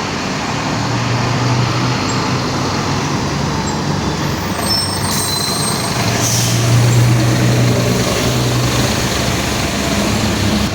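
Mercedes-Benz OF-1721 BlueTec 5 city bus under way, its diesel engine and drivetrain running steadily with the differential growling. The engine note swells slightly about six to seven seconds in.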